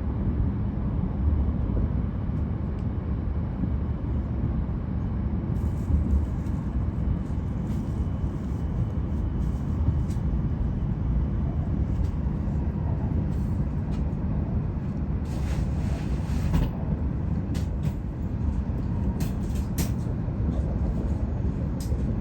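Steady low rumble of a Tohoku Shinkansen train heard from inside the passenger car, with a few short clicks in the second half.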